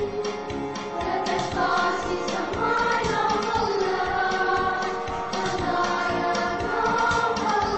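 A march song sung in Filipino over instrumental accompaniment with a steady beat, the voices holding long melody notes.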